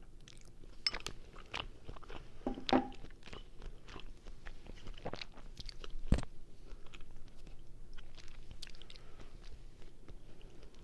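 Close-miked chewing of linguine carbonara, with the microphone taped to the face: a steady run of wet mouth clicks and chewing sounds. A louder mouth sound comes near three seconds in, and a sharp knock about six seconds in.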